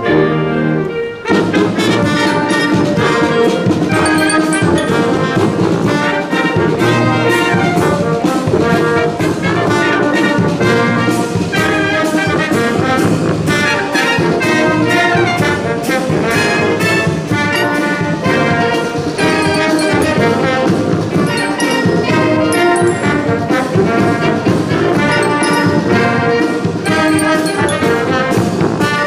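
A military brass band of trumpets, trombones and sousaphones playing a march over a steady drum beat. About a second in, the music changes from held chords to a brisk, beat-driven passage.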